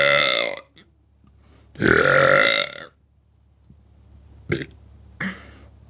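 A woman belching: a long burp that stops about half a second in, then a second burp lasting about a second, followed by a few faint clicks.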